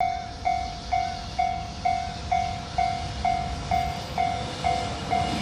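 Japanese railway level-crossing warning bell ringing, an electronic ding repeated about twice a second, signalling an approaching train.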